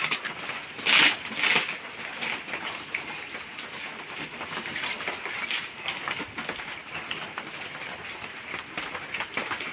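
Parcel packaging being opened by hand: plastic wrapping and tape tearing and rustling, with two louder rips about a second in.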